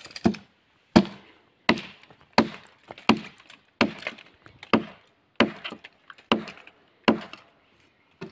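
Machete chopping into the bark of a felled tree trunk: about ten evenly paced blows, roughly one every 0.7 seconds.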